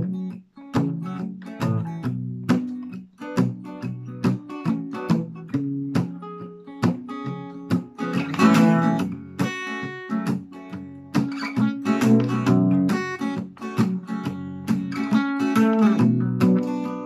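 Solo acoustic guitar playing a song's instrumental intro: single picked notes, with fuller strummed chords about halfway through and again near the end.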